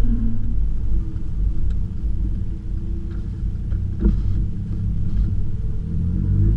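Golf GTI Mk6's 2.0-litre turbocharged four-cylinder through a 2.5-inch stainless catback exhaust, running at low, steady revs with a low rumble. There is a single sharp knock about four seconds in.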